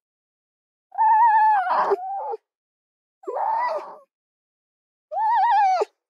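Three separate red fox calls with dead silence between them. About a second in comes a wavering, whining cry that turns harsher before it stops. A shorter, harsher call comes a little past the middle, and a clear wavering cry near the end drops in pitch as it cuts off.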